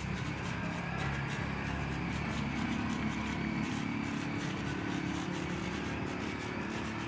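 An engine running steadily at a distance: a continuous low hum with a droning tone that rises slightly about two seconds in and then holds.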